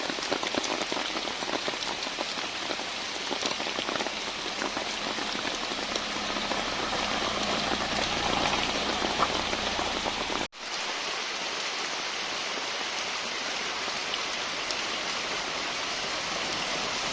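Rain pattering on a car, a dense steady hiss full of small drop ticks. About ten seconds in the sound cuts out for a moment, then comes back as a smoother rushing hiss.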